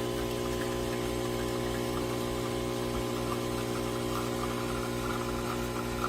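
De'Longhi Dedica Duo espresso machine's vibratory pump running with a steady buzzing hum.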